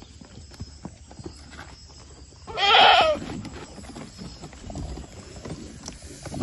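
A goat bleats once, a loud wavering call lasting under a second, a little before halfway through; another bleat starts right at the end. Faint knocks and shuffling run in between.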